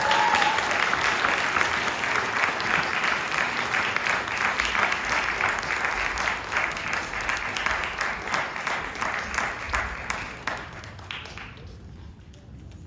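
Audience applauding after a piano performance, with a shouted "yeah" as it begins; the clapping thins out and dies away about eleven seconds in.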